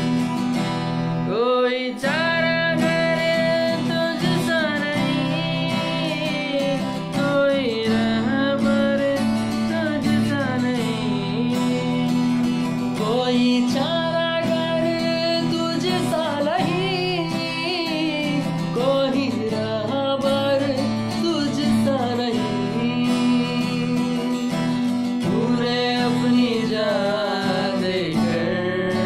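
Men singing a song to a strummed acoustic guitar.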